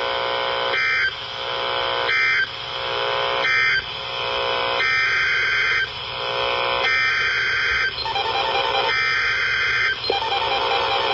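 NOAA Weather Radio Emergency Alert System (SAME) digital data bursts: a string of harsh, buzzy one-second bursts over radio static. These are the coded end-of-message and header signals that frame a warning broadcast.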